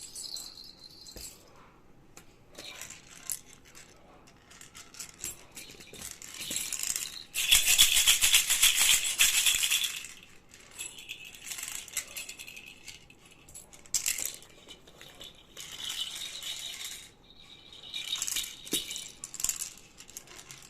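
A toy baby rattle (jhunjhuna) shaken in a series of bursts with short pauses between them, the longest and loudest lasting about two and a half seconds near the middle.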